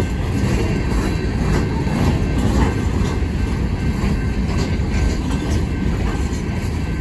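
Empty steel coal cars of a freight train rolling past: a steady, loud rumble of wheels on rail, with a few knocks and clanks from the cars.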